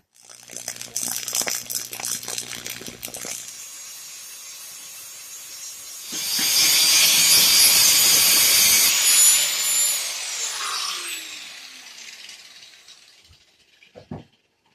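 Power saw cutting a piece of steel angle iron, loudest from about six to ten seconds in, then its whine falling as the motor winds down. Before that, a quieter rapid ticking over a low hum.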